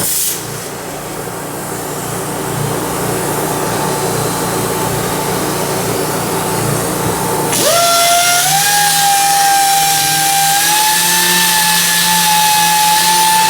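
Power sander working on the coach's body: a rough, even hiss at first, then about halfway through a strong, high motor whine that climbs slightly and holds steady.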